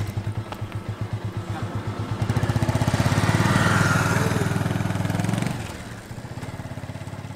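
Motorcycle engine running with an even pulsing beat, getting louder as the bike pulls away and then fading as it rides off.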